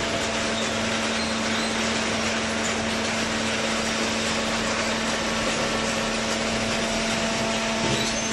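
Top-load hydraulic cardboard baler running: a steady, dense machine noise with a constant low hum throughout.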